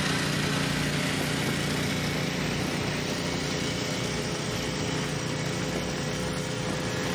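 A small engine running steadily: an even, unchanging drone with a faint steady tone above it.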